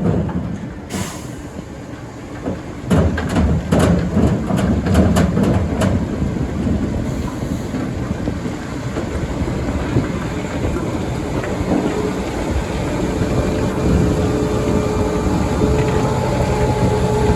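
ROPA Maus sugar beet cleaner loader running, its engine and conveyors giving a steady heavy rumble as beet clatters through. There is a run of sharp knocks a few seconds in, and a steady whine comes in over the second half.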